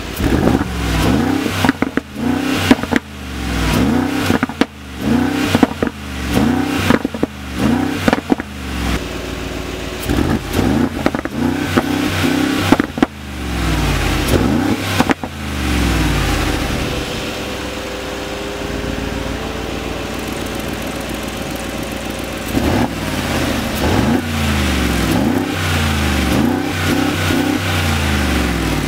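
Mercedes-AMG G 63's four-litre V8 free-revving at a standstill through a Baq cat-back exhaust, with the exhaust valves open: repeated throttle blips that rise and fall, with sharp cracks between them. It then settles to a steady idle, and from about three quarters of the way through it blips again, with the valves closed.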